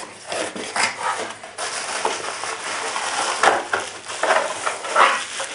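Bubble wrap and cardboard box flaps rustling and crinkling as bubble-wrapped parts are handled and lifted out of a small cardboard box, a dense run of irregular crackles with louder bursts near the middle and near the end.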